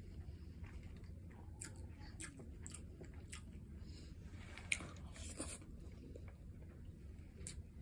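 Close-miked chewing and wet mouth clicks of a person eating rice and tomato stew by hand, with one sharper click about two-thirds of the way through.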